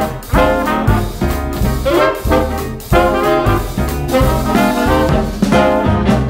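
Upbeat swing-style background music with brass horns over a steady beat.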